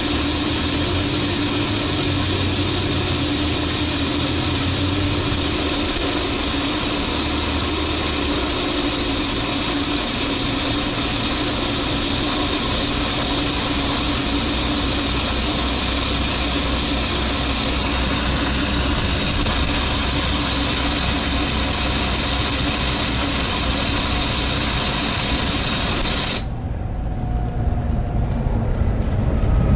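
Very loud suction noise aboard a Volvo B7TL double-decker bus: a steady, loud rushing hiss over the hum of the running engine. It cuts off suddenly near the end, leaving only the engine. The passengers could not tell where it comes from; the uploader puts it down to poor maintenance.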